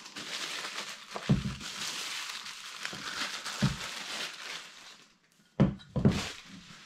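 Thin plastic wrapping film crinkling and rustling as it is pulled off a stainless steel food thermos, with a few soft bumps. Near the end two louder thumps as the thermos is handled and stood on the table.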